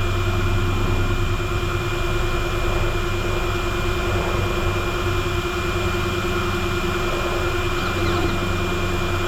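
Small electric cooling fans running steadily: a constant whirring hum with a fixed high whine over it.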